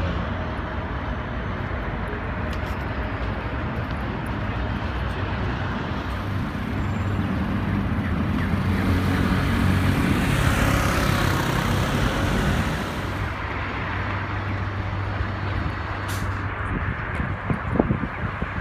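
City street traffic: a steady rumble of passing cars and buses, swelling as a vehicle passes close from about nine to thirteen seconds in.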